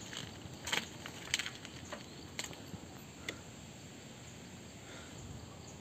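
A mountain bike clicking and rattling a few times as it rolls onto a concrete bridge, then a steady faint outdoor background hiss.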